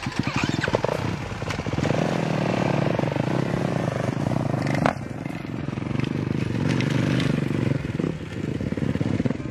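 Motocross dirt bike engine running close by as the rider sets off, with a rapid firing pulse. A sharp click about five seconds in.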